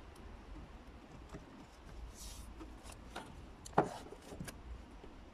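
Hands handling fabric bunting and double-sided tape on a wooden table: a brief rustle about two seconds in, then a few light clicks and one sharp knock on the wooden tabletop a little before four seconds in.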